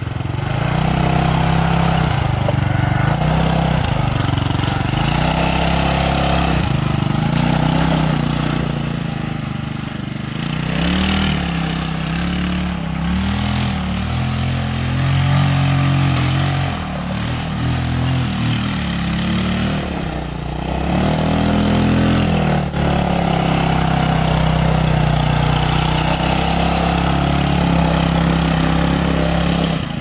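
Off-road go-kart's small engine running as it is driven over a dirt trail, its pitch rising and falling several times through the middle as the throttle is opened and eased off.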